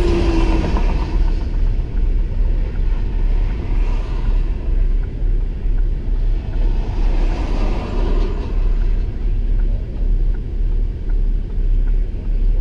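Steady low rumble heard from inside a stopped vehicle, with two louder swells of passing road traffic: one at the start, one about seven to eight seconds in.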